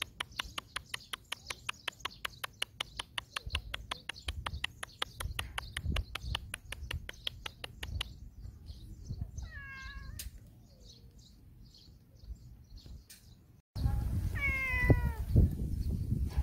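A cat meows twice: once about ten seconds in, and again near the end over wind rumbling on the microphone. For the first eight seconds a rapid, even series of short chirps, about five a second, is the loudest sound.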